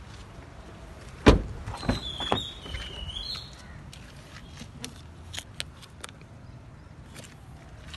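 Handling noise around a Mahindra KUV100 NXT's open door and seat: a loud knock about a second in, two more knocks with a high wavering squeak, then a few light clicks and rustles.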